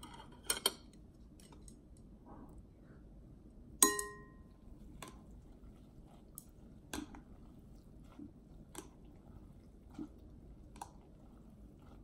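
Chopsticks clinking and tapping against a glass bowl while lifting and stirring noodles: a quick few clicks at the start, one sharp clink just before four seconds in that rings briefly, then scattered lighter taps.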